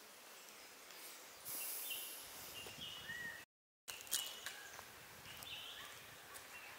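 Faint forest ambience: short bird calls over a steady hiss, with a stretch of high hiss in the first half. The sound drops out completely for a moment about halfway through, then comes back with a few sharp ticks.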